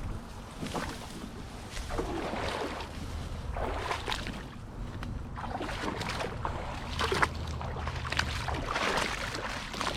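Creek water sloshing and swishing about once a second as someone wades through it, with a few splashy clicks among them.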